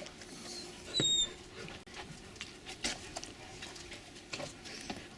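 Irish wolfhound puppies moving about on paving, with scattered light clicks and scuffs of claws and paws. A puppy gives one short, high-pitched whine about a second in.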